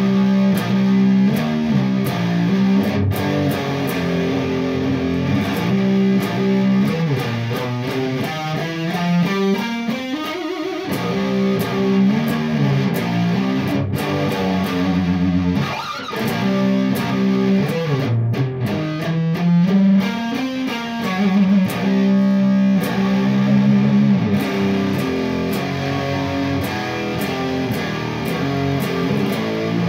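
Electric SG guitar played through an Orange amp with a distorted tone, running through a heavy riff of repeated low notes. Several slow slides up the neck rise in pitch through the riff.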